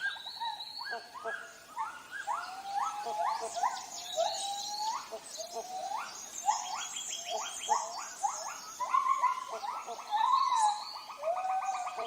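Tropical rainforest animal chorus: many short calls rising in pitch, repeated over and over, over rapid pulsing trills and higher chirps.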